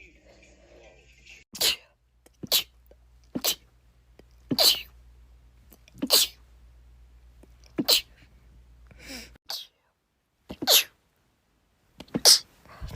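Human sneezes in quick succession: about nine sharp sneezes, roughly a second apart.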